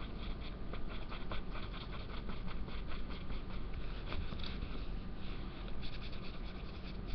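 Felt-tip marker scribbling quickly back and forth on paper, a fast run of short scratchy strokes as an area is coloured in.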